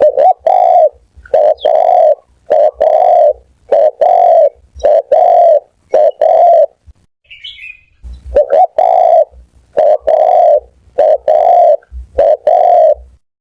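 Spotted dove cooing: loud repeated low coo phrases, each a short note run into a longer one, in a steady rhythm. About seven seconds in the cooing stops for about a second and a half, with a faint higher chirp in the gap, then resumes.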